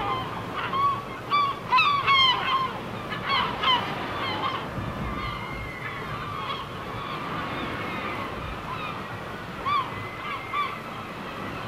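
Birds calling in short, arched calls: a dense flurry in the first few seconds, then a few more near the end, over a steady rushing background.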